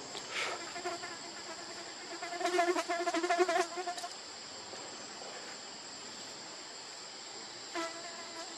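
Insects droning in a steady high buzz, made of two even tones, with no break. About two and a half seconds in, a wavering, pitched call rises over it for a second and a half and is the loudest sound. A short one follows near the end.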